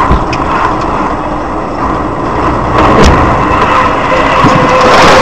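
Car cabin noise picked up by a dashcam microphone: a steady rush of engine and road noise, with a dull knock near the start and another about three seconds in.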